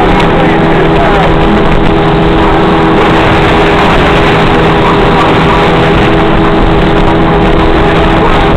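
Motorboat engine running steadily at speed while towing a tube, with water and wind rush over it; the sound is loud and unchanging.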